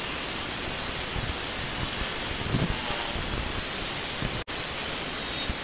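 Angle grinder with a cut-off disc cutting through rectangular steel tubing: a steady hiss of the abrasive disc grinding through the metal, with a momentary break about four and a half seconds in.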